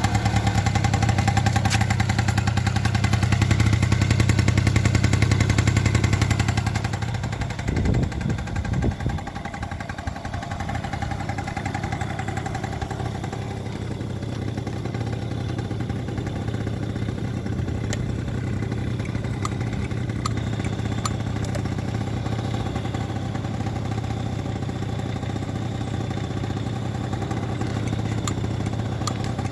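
1986 Honda Spree's 50 cc two-stroke single-cylinder engine idling steadily while it warms up after a cold start. It is loud at first, then quieter from about seven seconds in, with a few dull thumps soon after.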